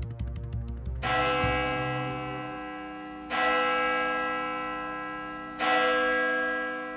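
A deep bell struck three times, about two seconds apart, each stroke ringing out and slowly fading. A fast ticking dies away in the first second.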